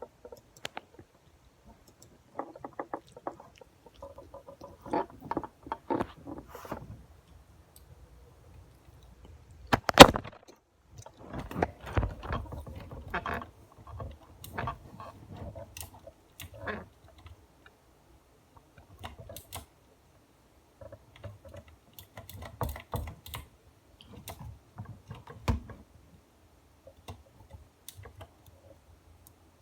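Computer keyboard typing and mouse clicking in irregular bursts, with one louder knock about ten seconds in.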